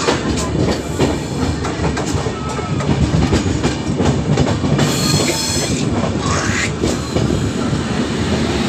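Train running at speed, heard from aboard a carriage: a steady rumble with the repeated clickety-clack of wheels over rail joints, and a brief hiss about five seconds in.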